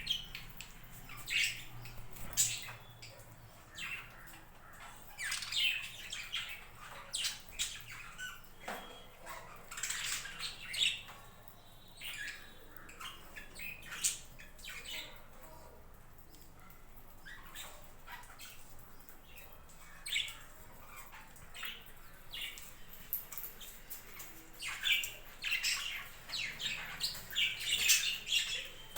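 A flock of budgerigars chirping and squawking in short, overlapping calls, thinning out around the middle and getting busier again near the end.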